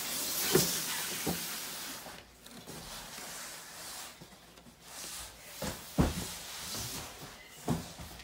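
Someone moving on a stairway fitted with a wooden plank ramp and handling cardboard cases: several dull thumps and knocks, the loudest about six seconds in, with stretches of scraping hiss.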